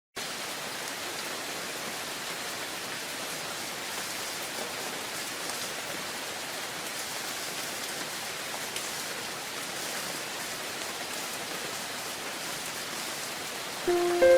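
Steady rain falling, cutting in suddenly out of silence. Near the end, several held, bell-like chime notes come in over it.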